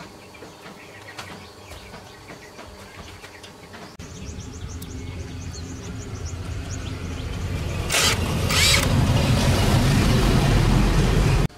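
Quiet outdoor background with faint insects, then a cordless impact wrench: two short bursts, followed by a few seconds of loud, continuous running that stops abruptly near the end.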